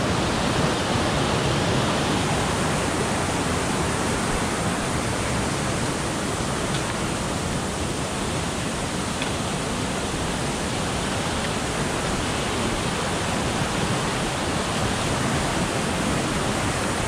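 Mountain creek rushing in white water over rocks: a loud, steady rush of water with no letup.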